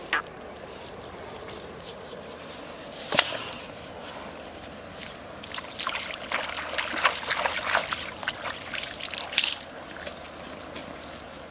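Hands splashing and sloshing in shallow river water, a rinse at the water's edge, in a busy stretch of several seconds from about halfway through. Two single sharp knocks come before it, one at the very start and one about three seconds in.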